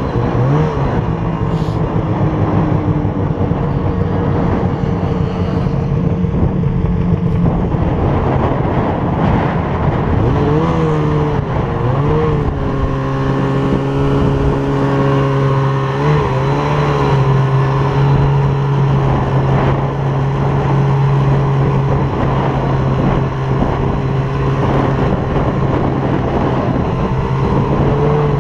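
Two-stroke snowmobile engine running under the rider, revving up and easing off several times in the first half, then holding a steady pitch at cruising speed. A steady rush of wind noise runs underneath.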